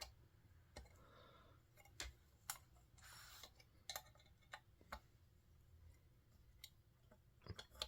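Faint, scattered clicks and taps of a screwdriver working the screws of an old smoke detector's front plate, with a brief scrape about three seconds in.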